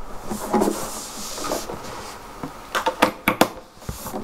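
Handling noise as a guitar cable plug is fitted into the output jack of a nylon-string electroclassical guitar: rustling and knocks, with a quick cluster of sharp clicks about three seconds in.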